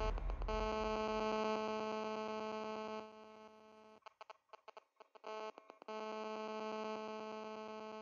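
Faint steady electronic buzzing tone with many overtones that cuts out about three seconds in, stutters on and off, then comes back for the last couple of seconds.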